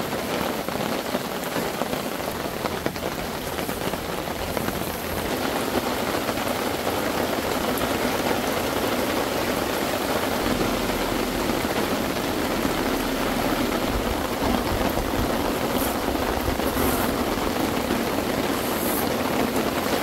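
Steady rain falling on a tarp overhead and the surrounding ground, an even hiss that holds at the same level throughout.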